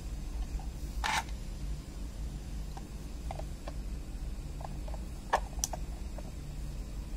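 Rigid 3D-printed plastic box being handled: a brief scrape about a second in, a few light plastic clicks, then two sharp clicks a little past the middle as the lid is shut onto the base. A steady low hum runs underneath.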